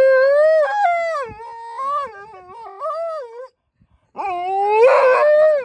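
Alaskan Malamute howling loudly on a "speak" command: a long wavering howl that breaks off about three and a half seconds in, then a second rising howl near the end.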